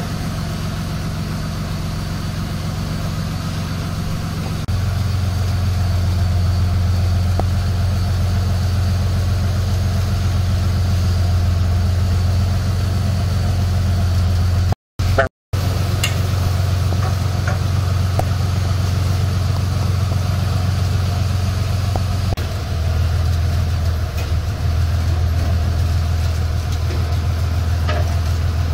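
New Holland 8060 combine harvester's diesel engine running steadily, stepping up louder about five seconds in. The audio drops out twice very briefly around the middle.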